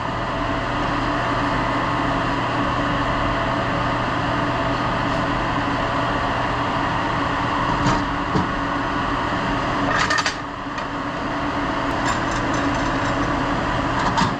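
Steady industrial machinery hum with a constant low drone, and a couple of short knocks of handling around eight and ten seconds in.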